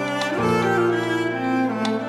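Background music with held notes that step to new pitches several times.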